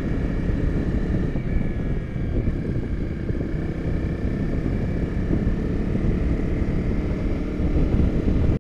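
Honda CRF250L's single-cylinder engine running steadily at road speed, mixed with wind rushing over the bike-mounted microphone; a little louder near the end.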